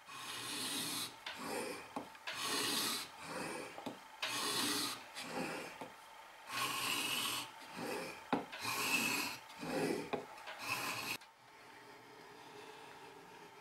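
Steel plane iron from a wooden coffin smoother being honed on a sharpening stone, polishing the back bevel. It makes rhythmic back-and-forth scraping strokes, about one a second, that stop shortly before the end.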